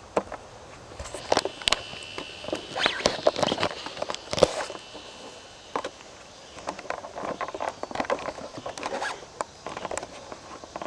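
Scraping, rustling and knocking of a long wooden tipi smoke-flap pole being moved against the canvas, with footsteps on the grass. A thin high whine is heard for about three seconds near the start.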